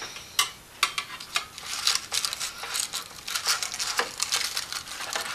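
Metal slotted spatula scraping and clicking against a metal baking tin, lifting cake out: an irregular run of scrapes and sharp taps.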